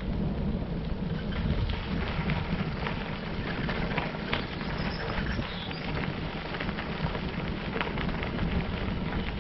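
Bicycle tyres rolling over light gravel: a steady crunching crackle of many small stone clicks over a low rumble.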